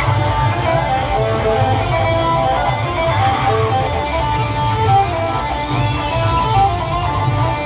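Timli band music played by a rally band: a quick, loud lead melody of short notes, guitar-like in tone, over a heavy, steady drum and bass beat.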